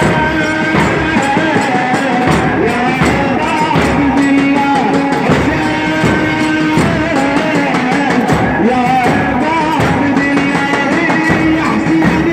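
Sung Shia mourning lament (latmiya) for a chain procession: a long, wavering melody held over a steady beat.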